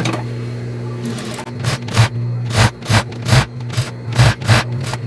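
Industrial single-needle lockstitch sewing machine over a steady motor hum, stitching through lycra in about eight short quick bursts starting about a second and a half in. The seam it is sewing skips stitches.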